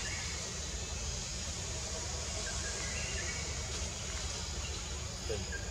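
Steady outdoor forest ambience: a low rumble under an even hiss, with a few faint short high calls.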